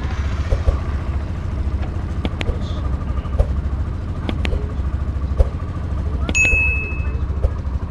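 Vehicle driving, heard from inside: a steady low engine and road rumble with scattered knocks and rattles. A brief high ding sounds about six seconds in.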